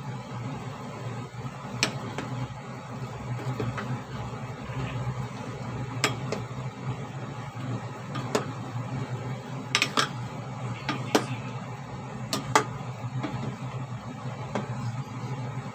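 A spoon stirring pork ribs in a simmering pot, knocking against the pot in about ten sharp clicks, several close together past the middle, over a steady low hum.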